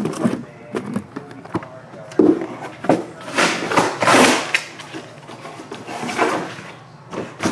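Shrink-wrapped cardboard card boxes being handled and stacked: sharp knocks as boxes are set down, and rustling of the plastic wrap, loudest about three to four and a half seconds in.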